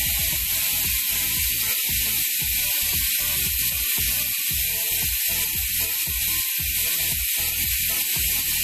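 Freehub of an ECC Race N85 carbon road wheel buzzing steadily as the rear wheel coasts on a stand: the pawls click so rapidly on the ratchet ring that the ticks merge into one shrill, high-pitched 'cricket' buzz.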